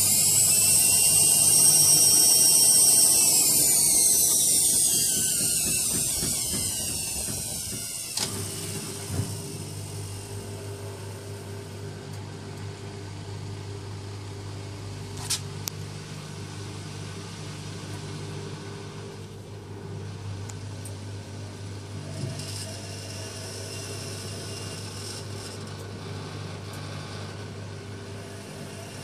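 AEG Lavamat 6410 washing machine running: a loud high motor whine whose pitch bends and then cuts off with a click about eight seconds in, followed by a steady low mechanical hum with a few faint clicks.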